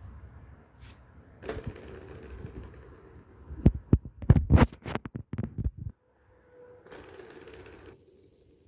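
Three-tier plastic ball-track cat toy rattling as a kitten bats at it: a quick run of sharp plastic clicks and knocks for about two seconds in the middle, with softer rustling before it.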